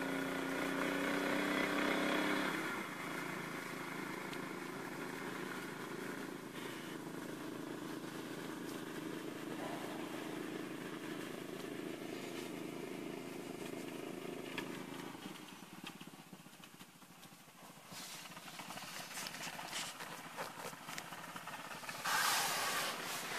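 A distant engine running steadily, louder for the first couple of seconds, then fading away about fifteen seconds in. Near the end there are scattered clicks and a short burst of rustling noise.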